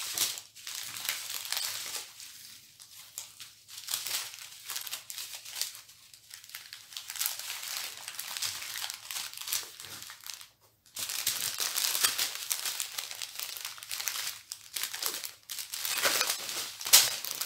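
Plastic bags and packets of diamond-painting drills crinkling and rustling as they are handled and packed away, in repeated bursts with a short pause a little past halfway. A sharp knock near the end is the loudest sound.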